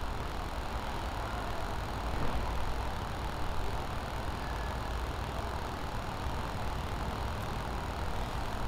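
Steady outdoor background noise: a low rumble with an even hiss, no distinct events.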